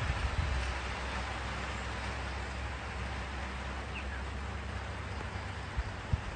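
Steady rain hissing over a low rumble. A single short, falling chirp about four seconds in, and a couple of low thumps near the end.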